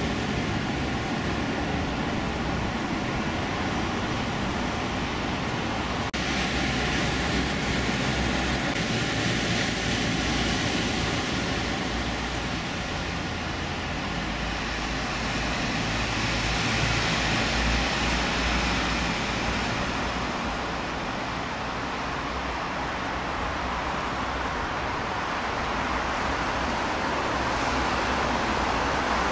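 Steady hum of road traffic on a busy city road, rising and falling as vehicles pass.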